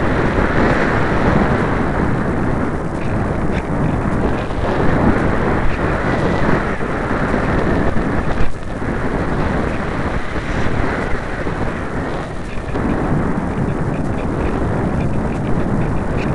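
Wind rushing and buffeting over the microphone of a camera riding on a light thermal glider in flight: a loud, steady rumble of airflow noise with no motor, dipping briefly twice in the second half.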